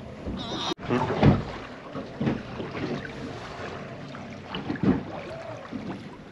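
Wind and small waves lapping against the hull of a drifting small boat at sea, with a couple of dull knocks.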